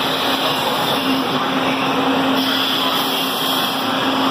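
SEPTA ACS-64 electric locomotive rolling slowly past along the platform, giving a steady electric hum over a broad rushing noise.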